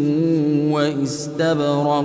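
Quran recitation: a man chanting in a melodic, drawn-out style, holding and ornamenting long vowels with a short hiss of an "s" about a second in.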